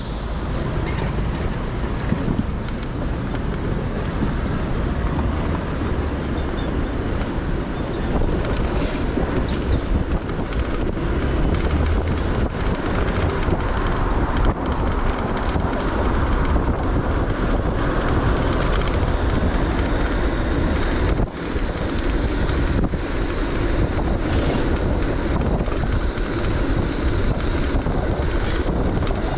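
Steady road and traffic noise from a car driving on city streets, with wind noise on the microphone.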